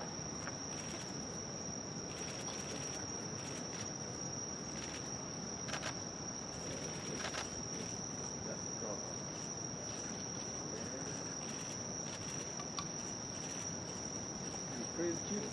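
A steady high-pitched whine over a low background hiss, with a few faint clicks.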